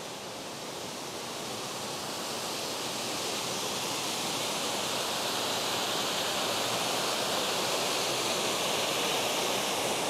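Waterfall pouring over a rock ledge: a steady rush of falling water that grows louder over the first several seconds, then holds.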